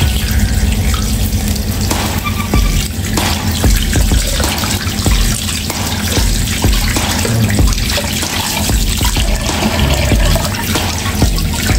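Kitchen tap running into a stainless steel sink as a raw milkfish is rinsed and rubbed by hand under the stream. Small splashes and knocks come as the fish is handled.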